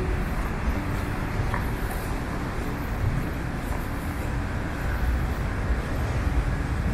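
Steady low rumble of city street background noise, distant traffic.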